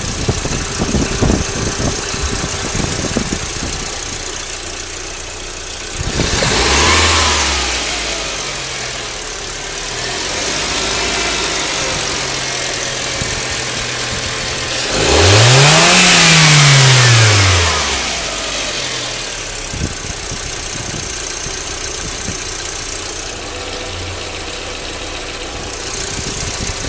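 1998 VW Passat 1.8-litre four-cylinder petrol engine idling, blipped briefly about six seconds in, then revved higher about fifteen seconds in and falling back to idle, that rev the loudest part. The owner finds the engine's noises odd.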